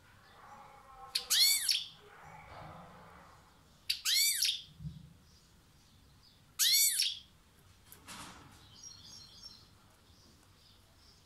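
Caged European goldfinch calling: three loud rising-and-falling call notes, about two and a half seconds apart, then faint, soft twittering near the end.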